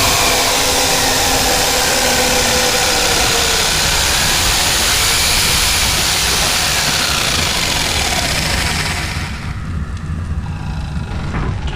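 A loud, steady rushing noise like a running engine, with faint tones gliding up and down through it; it dies away about nine seconds in.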